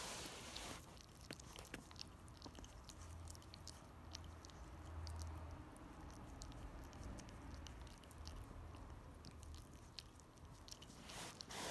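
Small dog gnawing on a chew toy: faint, irregular small clicks and crunches of teeth on the toy.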